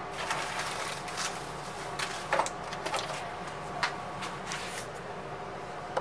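Soft scrapes and a few light clicks of handling: fingers and a plastic pry tool moving against a laptop's plastic bottom case, over a faint steady room hum.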